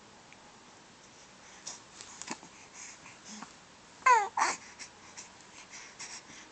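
Two short squeaky vocal sounds, each falling in pitch, about four seconds in, over light rustling and faint clicks.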